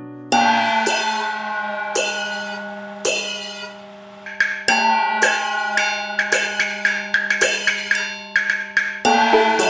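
Instrumental background music of ringing, sharply struck notes: a few slow notes at first, then a quicker run of notes from about halfway.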